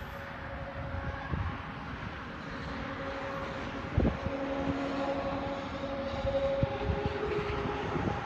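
Electric motors of a BMW X7's power third-row seats whirring steadily, shifting pitch near the end as the seats move. There is a sharp knock about four seconds in, and handling rumble.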